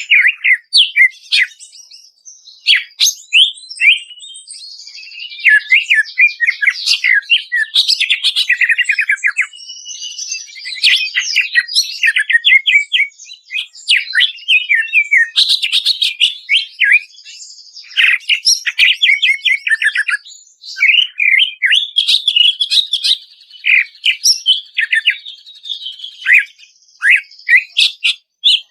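Cucak ijo (greater green leafbird) singing almost without pause, a dense run of whistled chirps, quick trills and fast repeated notes, broken only by a few short gaps.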